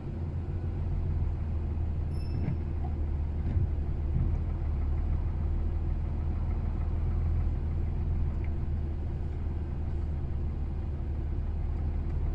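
Steady low diesel engine drone heard from inside a lorry cab as the truck is towed through snow behind a tractor.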